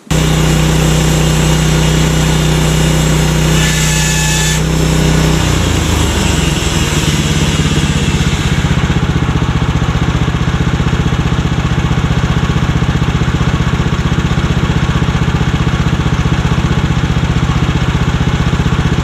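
Woodland Mills portable bandsaw mill running, its engine steady as the band blade cuts an old barn beam. About four seconds in there is a brief high metallic screech, typical of the blade striking a nail in the old wood. After it the engine note drops and turns to an even pulsing.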